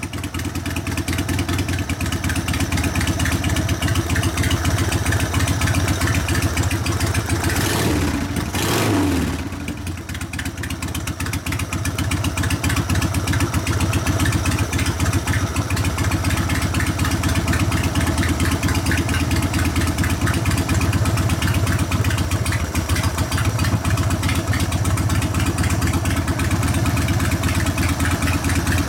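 Harley-Davidson 1200 Sportster's air-cooled Evolution V-twin running on a freshly fitted 42 mm Mikuni HSR42 carburetor, idling with one quick rev up and back down about eight seconds in. The engine is a little flat right off idle, which the mechanic puts down to too lean a jet with the idle mixture screw half a turn out.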